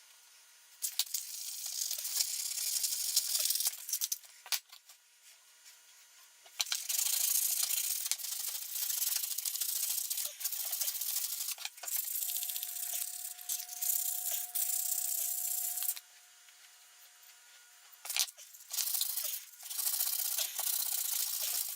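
Abrasive hand rubbing on metal, as in taking rust off the parts of an old hand plane: hissy scraping strokes in spells of a few seconds, broken by short pauses.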